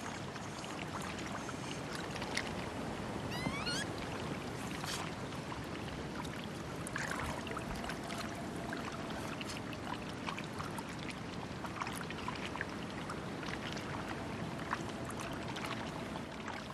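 Hot-spring water flowing and trickling steadily, with a brief rising chirp about three and a half seconds in and a few faint clicks.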